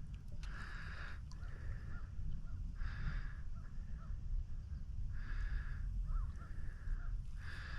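A crow cawing, four calls about two and a half seconds apart, over a steady low rumble.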